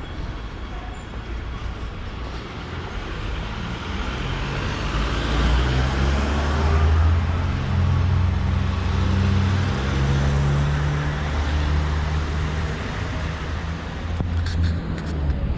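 Street traffic noise, with a nearby vehicle's engine hum that grows louder a few seconds in and holds for most of the stretch.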